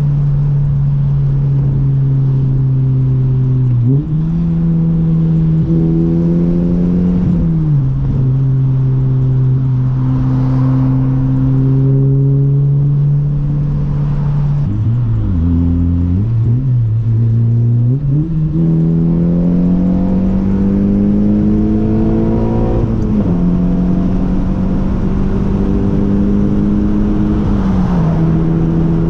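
Honda Civic Si's 2.4-litre four-cylinder running through an aftermarket Invidia N1 cat-back with a Magnaflow mid-pipe, heard from inside the cabin while driving. The exhaust note holds steady at cruise and rises and falls several times with the throttle: a climb about four seconds in, a brief dip and recovery around halfway, then a long rise before it drops back near the end.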